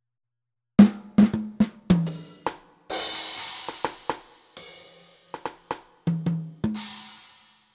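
Yamaha DD-65 digital drum pads played by hand, sounding its drum-kit samples: an uneven string of drum hits with a cymbal crash ringing out about three seconds in and another near the end.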